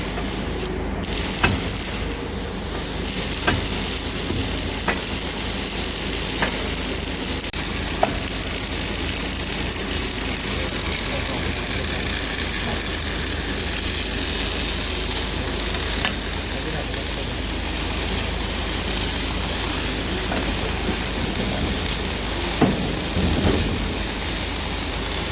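Electric welding arc crackling and sizzling steadily on steel, with sharp clicks about every second and a half through the first several seconds.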